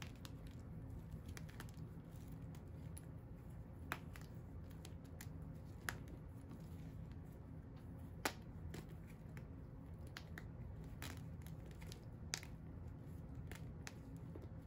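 Hands crumbling and rubbing broken pieces and powder of dyed, dried gym chalk: faint crunching and scratching with a handful of sharp snaps as pieces break, the loudest about eight seconds in, over a steady low hum.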